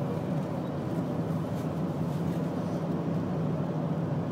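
Steady road and engine noise heard from inside a car's cabin as it drives.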